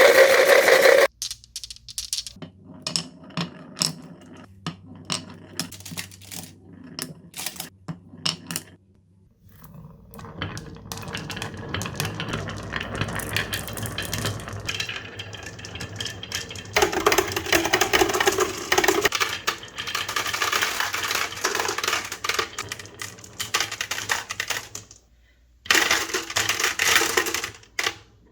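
Marbles clattering down a wooden marble run: scattered quick clicks and clacks, then a long stretch of continuous rattling that breaks off briefly twice near the end. A short loud sound opens it.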